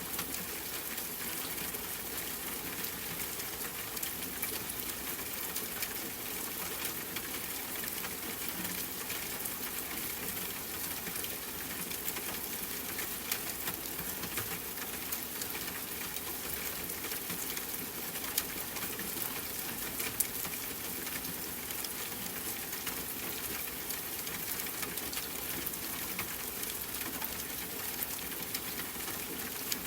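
Steady rain patter, a dense even hiss of falling drops, with a few sharper, louder drops in the second half.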